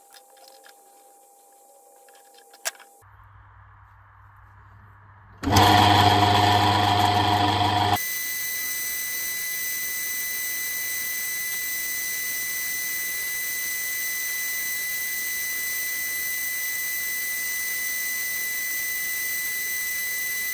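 Myford ML7 metal lathe: a single click in near quiet, then about five seconds in the motor starts with a loud hum. From about eight seconds the lathe runs steadily, a constant whirr with a high whine, as the chuck spins the steel bar for a light recessing cut.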